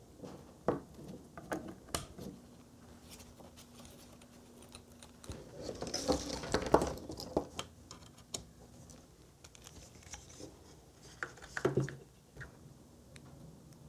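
Small clicks and knocks of power cables and their connectors being plugged into a camera rig and handled, with a denser rustle of cable handling about six seconds in.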